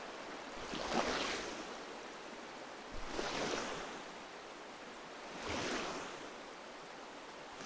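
Rowing boat's oars pulling through water: a splashing swoosh that swells and fades about every two and a half seconds, three strokes, over a steady wash of water.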